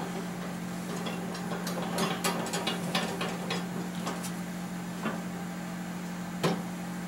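Light metallic clicks and ticks of hand tools and engine parts being fitted, coming in a quick irregular run in the middle and then as single clicks.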